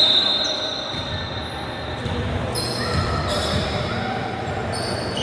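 Balls bouncing on a hard gym floor, echoing in a large hall, with brief high squeaks.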